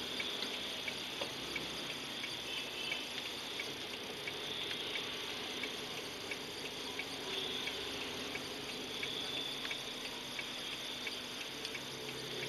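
A car's turn-signal indicator clicking evenly, about two clicks a second, over the steady hum of the car idling in the cabin.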